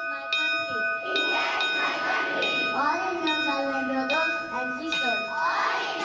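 Intro jingle of chiming bell notes, struck one after another about every half to one second, each note left ringing. A voice sounds over the chimes in the middle, and a noisy rush builds near the end.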